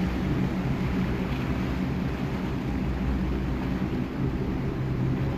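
A boat's engine running steadily as the boat moves along, a low drone under a rush of water and wind noise.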